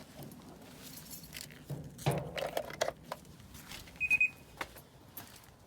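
Scattered clicks and rattles of a dryer's power cord being plugged back in and handled, then one short electronic beep from the dryer's control panel about four seconds in.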